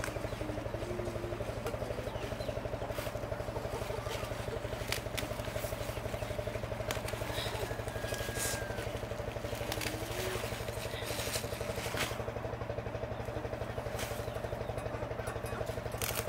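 Steady low drone of an engine running at constant speed, with scattered snaps and rustles of leafy greens being picked by hand.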